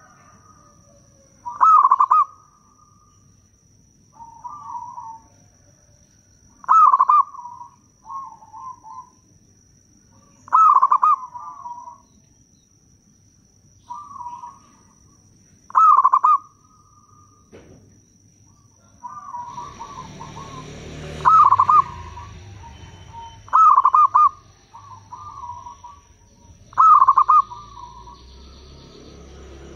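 Zebra dove (perkutut) cooing: seven loud, rolling coo phrases, one every three to five seconds, with softer coo notes between them. A faint steady high whine runs underneath, and about two-thirds in a rushing background noise comes up.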